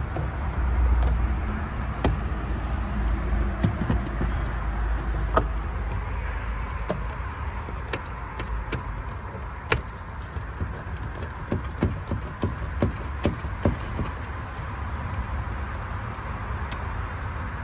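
Plastic air intake duct being handled and fitted onto the throttle body, and its clamp worked with a screwdriver: scattered sharp clicks and knocks of plastic and metal over a low handling rumble. The clicks come thickest about two-thirds of the way through.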